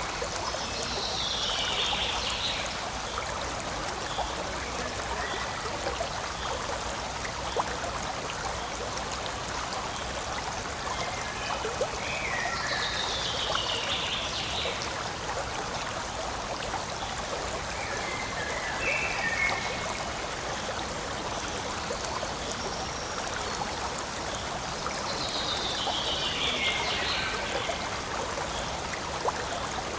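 Forest stream babbling steadily over stones, with small splashes. Four short, falling chirps sound high above it now and then.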